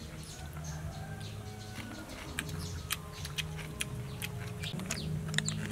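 Birds chirping in many quick, short calls, a few falling in pitch near the end, with chickens clucking, over low background music.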